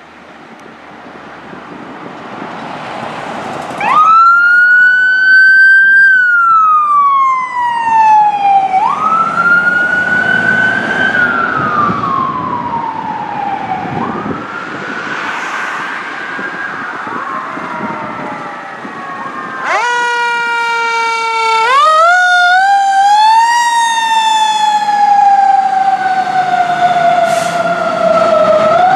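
Fire apparatus sirens on a rescue ambulance and a fire engine responding. Engine noise grows for the first few seconds, then an electronic wail siren sweeps up quickly and falls slowly three times. From about twenty seconds in, a louder siren wails in long rising and falling sweeps and jumps up in pitch twice.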